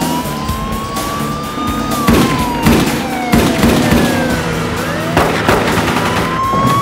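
Police siren wailing, rising and falling slowly, over vehicle noise and dramatic music, with several sharp bangs between about two and five and a half seconds in.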